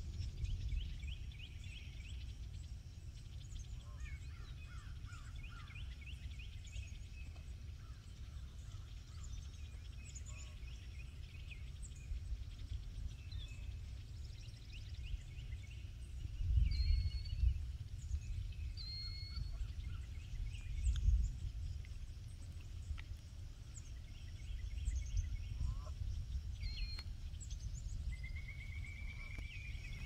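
Wild birds calling across open lakeshore: many short high chirps, trills and whistles scattered throughout, with a rising trilled call near the end. Under them a low rumble of wind on the microphone swells in gusts several times.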